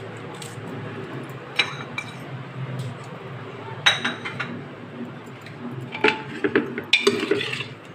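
A knife and a spoon clinking against an aluminium pressure cooker and a small bowl. There are a few separate sharp clinks, the one about four seconds in ringing briefly, and a quicker run of clinks near the end.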